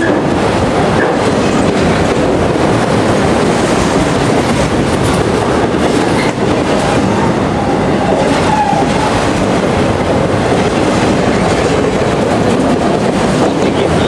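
Freight train of multilevel autorack cars rolling past close by: a steady, loud rumble and rattle of steel wheels on the rails.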